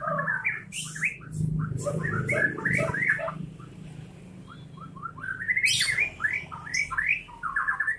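White-rumped shama (murai batu) singing: fast runs of quick rising and falling whistled notes mixed with sharp clicks, in two bursts with a pause of about a second in the middle.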